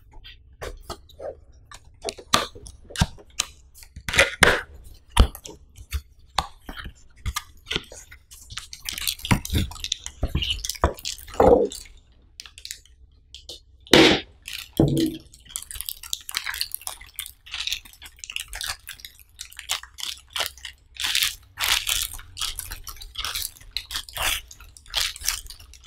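Unboxing sounds: a cardboard box being handled and opened, then a clear plastic bag crinkling and rustling as a tripod is slid out and unwrapped. Many short clicks and rustles, with a few louder knocks along the way.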